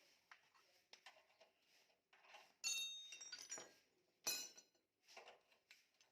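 Metal tools or parts clinking as they are handled, with two sharp ringing clinks about two and a half and four and a quarter seconds in, and faint small clicks between.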